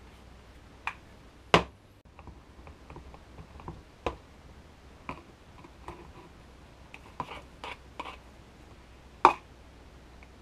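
Scattered light clicks and knocks of containers and tools being handled on a workbench while epoxy is mixed. Two louder knocks stand out, one about one and a half seconds in and one near the end.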